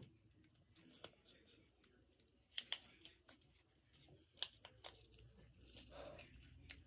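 Faint crinkling and rustling of small paper pieces and homemade tape being handled and pressed together, with scattered soft crackles and ticks, the sharpest about two and a half and four and a half seconds in.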